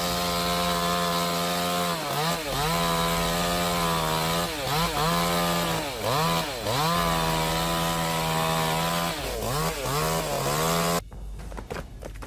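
Two-stroke chainsaw running at high revs, its pitch dipping briefly and climbing back several times. About eleven seconds in it cuts off abruptly, leaving quieter crackling and clicks.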